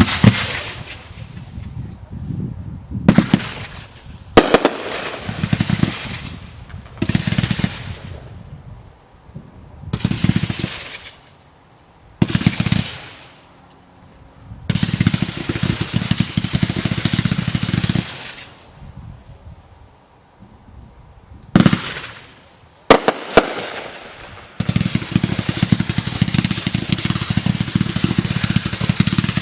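Consumer fireworks going off: a series of separate bursts, each fading over a second or so, with a couple of sharp single bangs. Two long runs of rapid popping follow, a shorter one midway and a longer one near the end.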